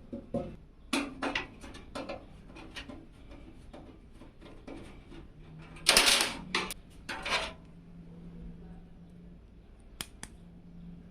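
Computer hardware being handled: scattered light clicks and knocks, then two loud scraping rustles about six and seven seconds in, and a single sharp click near the end.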